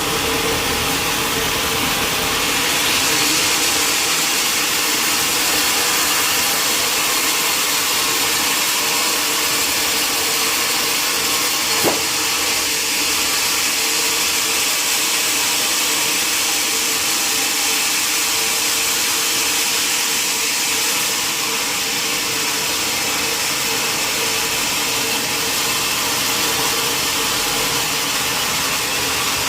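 Sawmill saw running steadily, a constant machine hum with a strong hiss over it. There is one sharp knock about twelve seconds in.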